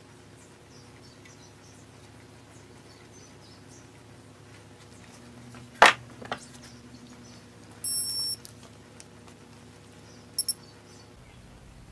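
A sharp knock of a tool on the workbench about six seconds in, then the electronic beeps of a digital torque wrench being switched on and set: one half-second beep about eight seconds in and two quick short beeps near the end. A faint steady hum lies underneath.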